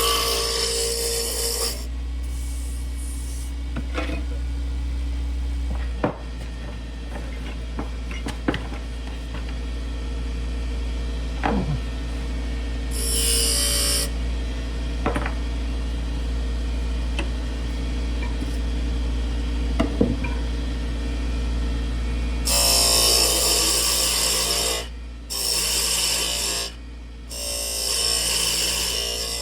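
Wood lathe running with a steady low hum while a turning tool cuts curly cherry on it, in several bursts of hissing, scraping noise, the longest in the last few seconds broken by two short pauses. A few light ticks fall between the cuts.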